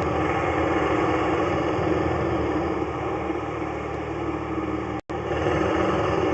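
Steady running noise of an engine or similar machine, cutting out for an instant about five seconds in.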